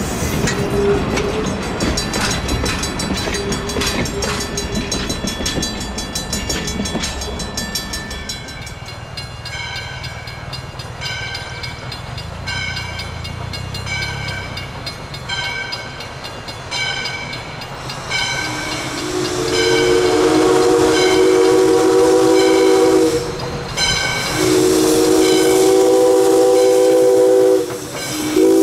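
A train rolls by with its wheels clicking over rail joints. Then a crossing bell dings about once a second while the chime steam whistle of 1920 ALCO steam locomotive Valley Railroad #40 blows two long multi-note blasts and then a short one near the end. This is the long-long-short start of the grade-crossing whistle signal.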